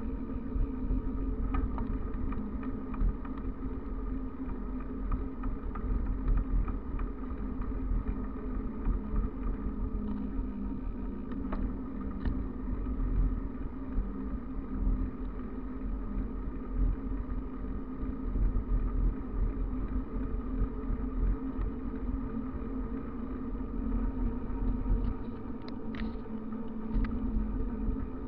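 Wind rush and rumble on the microphone with the steady hum of bicycle tyres on asphalt as the bike descends fast, with a few light clicks and rattles scattered through.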